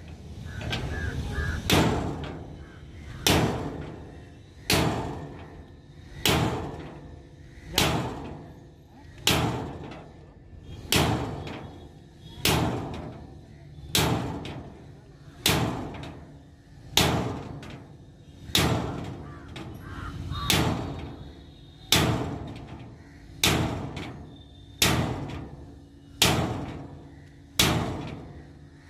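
Repeated heavy hammer blows on steel, about one strike every one and a half seconds, each ringing briefly as it dies away.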